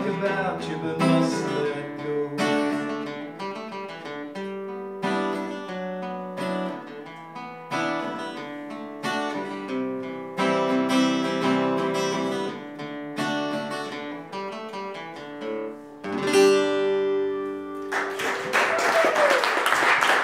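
Acoustic guitar playing the instrumental close of a song, picked notes and strummed chords, ending on a final chord about sixteen seconds in that rings out. Audience applause starts about two seconds later and runs to the end.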